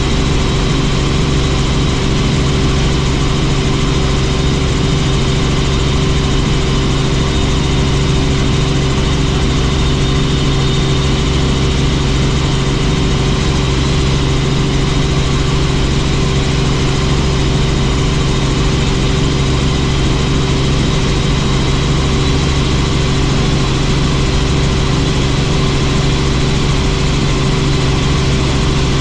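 Helicopter running: a loud, steady engine and rotor drone with a thin high whine over it.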